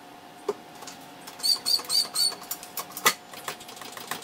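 A small bird chirps four times in quick succession, with sharp clicks and knocks scattered through, the loudest about three seconds in, over a faint steady hum.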